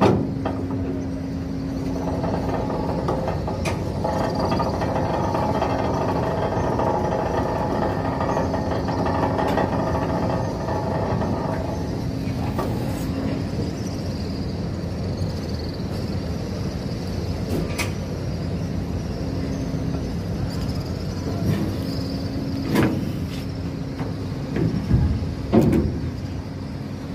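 Ferry's machinery running with a steady mechanical hum during mooring, busier for the first dozen seconds, with a few sharp knocks in the last few seconds.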